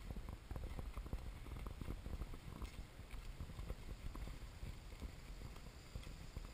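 Footsteps on a dirt and gravel trail: an irregular run of soft thuds and scuffs over a low, steady rumble.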